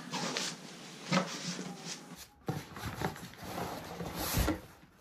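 Cardboard box flaps and a black fabric disc golf bag rustling, rubbing and knocking as the bag is handled inside its shipping box and pulled out, in irregular scuffs with a short gap a little past two seconds in.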